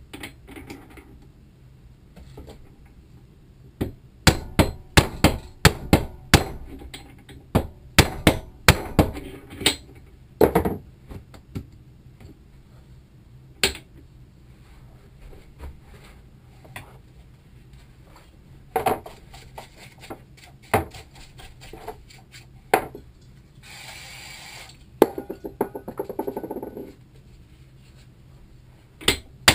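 Hammer blows on a gearbox shaft and bearing clamped in a bench vise: a quick run of sharp strikes for several seconds, then scattered single strikes. A short hiss comes near the end.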